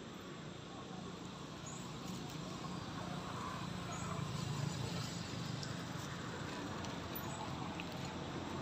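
Outdoor background noise: a low steady rumble that grows gradually louder, with a few faint brief high chirps.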